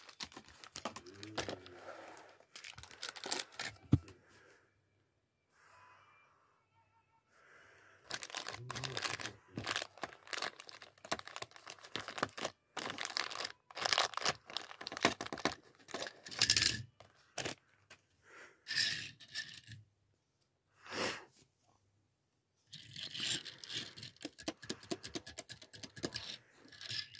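Clear plastic wrapper crinkling and tearing in irregular crackling clusters, with a sharp click about four seconds in and two short pauses.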